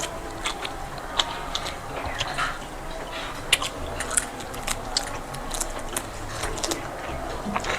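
Close-up eating sounds of rice and curry: wet chewing with many short, irregular mouth clicks.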